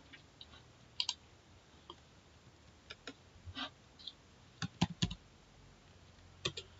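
Faint, sparse clicks of a computer keyboard and mouse, a few at a time with pauses between, with a small cluster about five seconds in.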